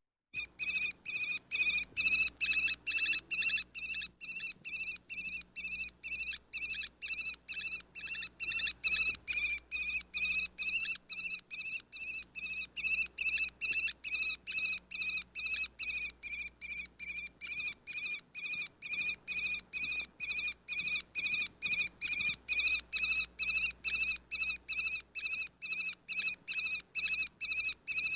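Sparrowhawk calling: a long, unbroken series of sharp, high-pitched calls repeated about two and a half times a second.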